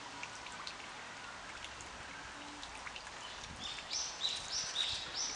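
A small songbird singing a repeated two-note phrase, high note then lower note, about three notes a second, starting a little past halfway through over faint outdoor background.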